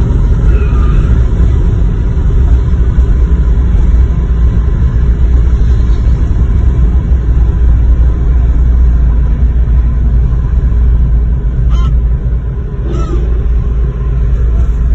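Steady low road and engine rumble inside a Mercedes-Benz car's cabin at highway speed, with two faint clicks about twelve and thirteen seconds in.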